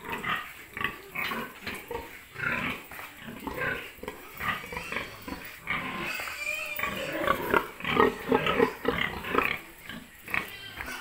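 Sows in metal crates grunting and calling, in short irregular bursts, loudest about seven to nine seconds in.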